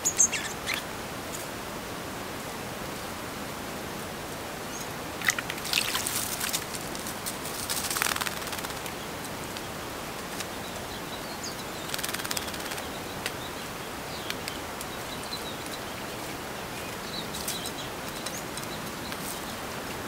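A small songbird bathing in a shallow bowl of water, splashing and fluttering its wings in bursts about a quarter of the way in, again near the middle, and briefly after that. A few faint high chirps sound toward the end, over a steady background hiss.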